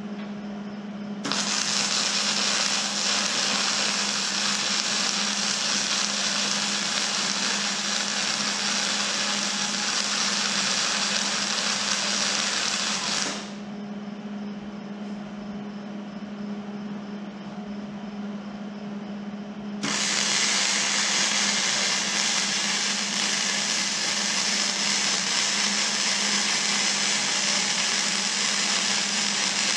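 Electric arc welding on steel bumper mounts: a steady frying crackle that starts about a second in and cuts off sharply after about twelve seconds. A second weld run starts about six seconds later. A steady low hum runs underneath.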